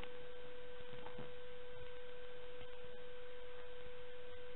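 Steady electrical hum, one constant mid-pitched tone with fainter overtones over a low hiss, with a few very faint ticks.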